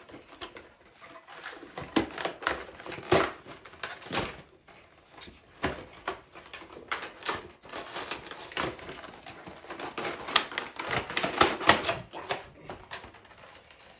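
A Pokémon card collection box being opened by hand: irregular clicks, crackles and rustles of cardboard and packaging being torn and handled.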